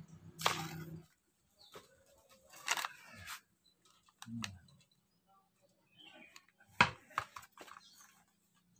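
Hands scraping and patting loose river sand and soil, heard as scattered brief rustles and scrapes, with a few sharp clicks about seven seconds in.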